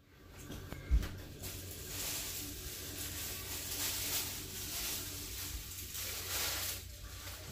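Muffled rustling and handling noise on the recording device while its lens is covered, with a soft knock about a second in.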